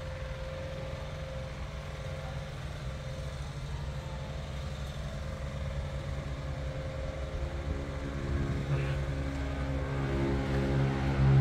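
A rice combine harvester's engine idling steadily: an even low rumble with a faint steady whine above it, growing louder over the last few seconds.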